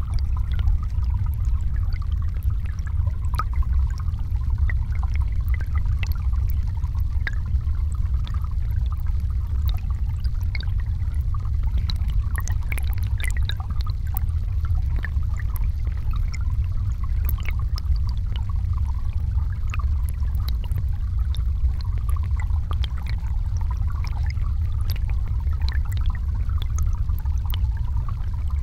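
River current flowing over rocks, heard from under the water's surface: a steady low rumble with many small clicks and ticks scattered through it.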